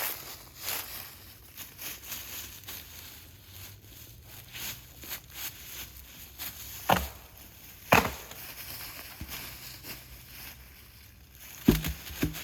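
Faint rustling and crackling with four sharp knocks: two spaced a second apart in the middle, and two close together near the end, the loudest.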